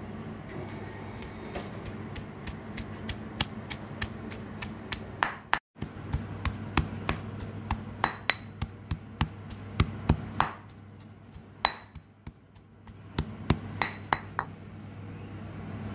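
Stone pestle pounding boiled shrimp in a granite mortar: a quick run of sharp knocks, about three a second, some with a brief ringing clink where stone meets stone. The shrimp are being mashed into a paste, and the knocking thins out for a few seconds near two-thirds of the way through.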